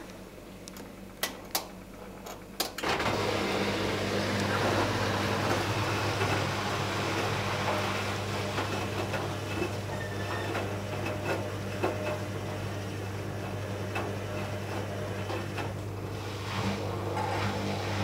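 Bauknecht-built Arçelik 5900E front-loading washing machine starting its programme: a few sharp clicks, then from about three seconds in a steady low hum with a hiss over it.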